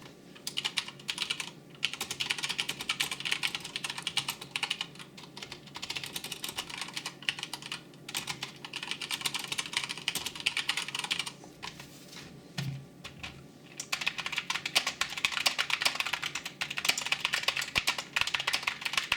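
Fast, hard typing on a mechanical keyboard with brown tactile switches, the keys bottoming out in a rapid clatter. There is a short lull about two thirds of the way through.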